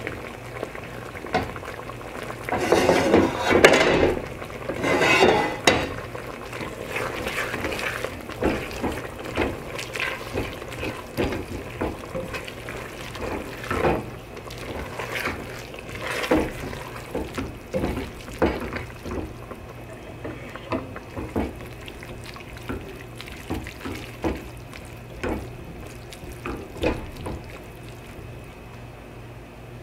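Tongs tossing spaghetti carbonara in an enamelled pot: wet stirring of the pasta in its sauce with many short taps and scrapes of the tongs against the pot. Louder bursts of tossing come about three and five seconds in.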